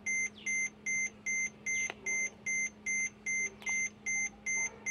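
Electronic beeper sounding a steady run of short, evenly spaced high-pitched beeps, about two and a half a second, while a control module is being reprogrammed, with a faint steady low hum beneath.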